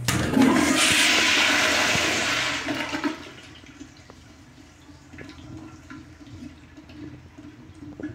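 Tankless wall-hung toilet with a push-button flushometer valve flushing: a click as the button is pressed, then a loud rush of water for about three seconds that drops to a quieter trickle as the bowl refills.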